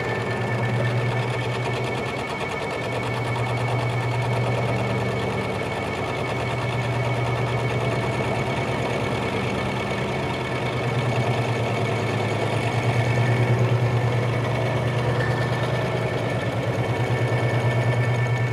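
Metal lathe taking a roughing cut on a spray-welded shaft: a steady spindle and motor hum that swells and eases slightly, with a rapid, even chatter of the tool cutting and two steady high whines.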